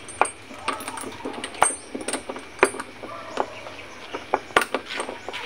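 Irregular metallic clicks and rattles of a key working a door lock as the door is being locked.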